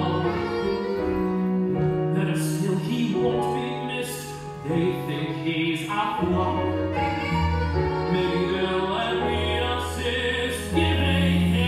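Music with singing: a theatrical song with long held notes over a bass line.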